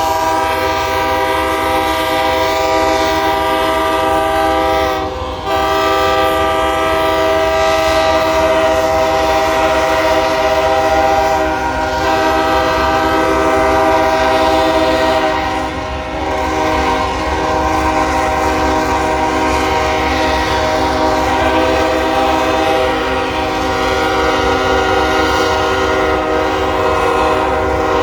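Several locomotive air horns blowing at once in a long, loud, held chord of many tones, dipping briefly about five seconds in and again near sixteen seconds before sounding on.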